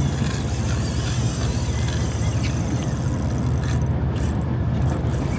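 Boat engine running steadily, a low hum under a constant hiss of wind and water.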